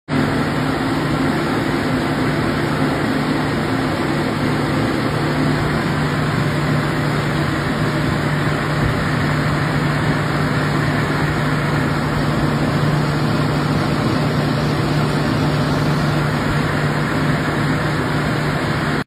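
A steady mechanical hum with a low drone, running evenly without change.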